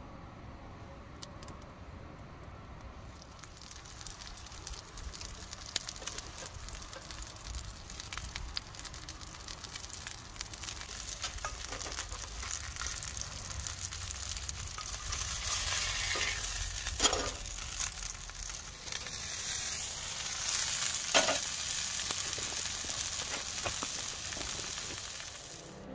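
A meat patty sizzling in a small cast-iron skillet over a wood fire, faint for the first few seconds and growing louder and more crackly later, with two sharp clicks in the second half.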